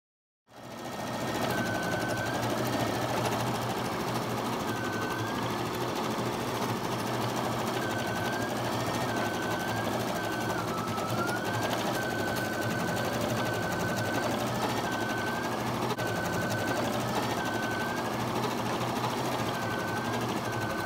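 Brother Innov-is NQ3600D sewing and embroidery machine running an embroidery design, starting up about half a second in. It keeps up a rapid, steady needle clatter, with a recurring whine that dips and rises every second or two as the hoop is moved.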